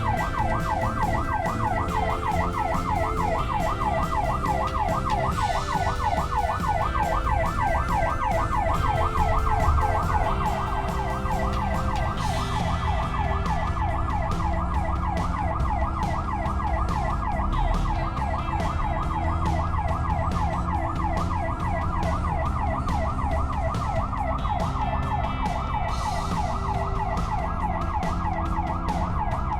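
Emergency-vehicle siren on a rapid warble, sweeping up and down several times a second without a break, over a low vehicle rumble.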